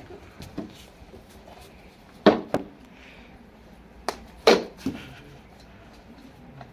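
A few sharp knocks of a plastic cricket bat and ball: two close together about two seconds in, then a bat stroke with more knocks between about four and five seconds in, the loudest of them.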